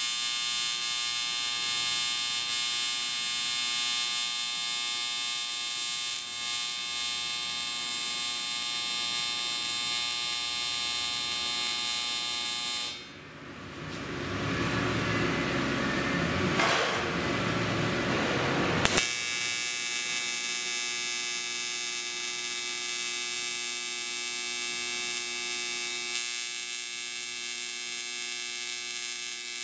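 AC TIG welding arc on aluminum, a steady electric buzz as the torch melts the bead and filler rod. Partway through, the buzz stops for several seconds and a rougher, noisier sound is heard before the buzz returns.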